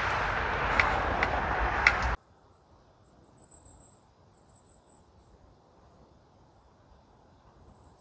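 A loud, even rushing noise with a few sharp clicks stops abruptly about two seconds in. After that it is quiet apart from faint, short, high-pitched insect trills that come and go.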